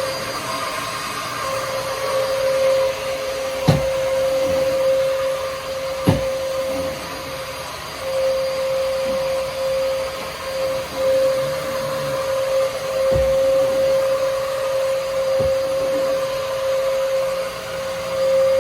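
Vacuum cleaner running steadily with a constant whine, broken by a few sharp knocks, about four in all.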